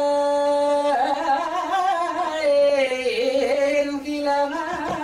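Singing voice holding one long steady note, then, about a second in, moving into a wavering, ornamented melodic line with vibrato.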